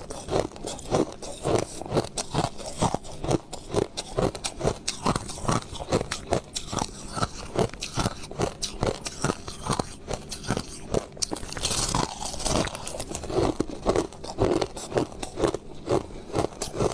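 Mouthful of white crushed ice being chewed close to the microphone: a steady run of crisp crunches, about three a second. A brief brighter crackle comes about twelve seconds in.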